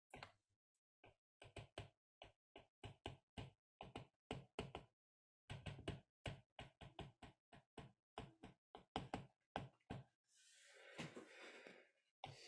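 Faint, irregular taps and clicks of a stylus on a tablet screen during handwriting, a few a second, followed by a brief soft hiss near the end.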